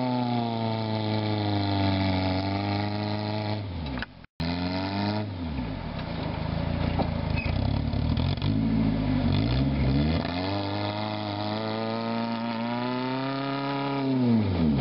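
Rock-crawler buggy's engine revving up and down as the buggy climbs a steep rock slope under load, its pitch repeatedly sagging and picking up again. The sound cuts out for a moment about four seconds in, and near the end the revs fall away sharply.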